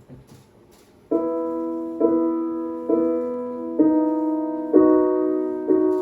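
Piano-sounding keyboard playing an intro: after about a second of quiet, chords are struck about once a second, each one fading away before the next.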